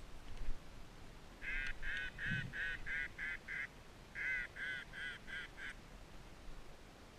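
Mallard-style quacking: a rapid series of about eight quacks at roughly four a second, a brief pause, then five more.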